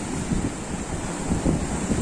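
Sea surf washing and breaking over shore rocks, with wind buffeting the microphone as a low, gusty rumble.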